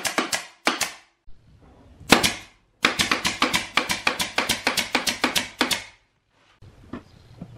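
Pneumatic nail gun firing nails into a plywood speaker box in rapid runs of several shots a second, with short pauses and a few single shots between runs.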